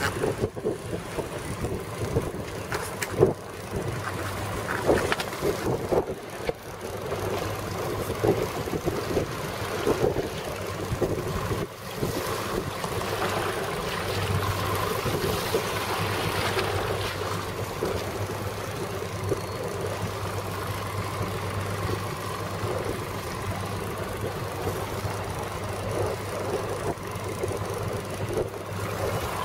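Twin Evinrude E-TEC 225 outboard motors running at low trolling speed, a steady low hum that stands out more clearly from about halfway through, under wind buffeting the microphone and water washing against the hull, with a few knocks in the first half.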